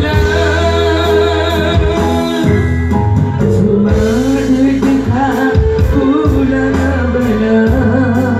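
Live stage band music amplified through a sound system: a singer holds long, wavering melody notes over keyboard and a steady percussion beat.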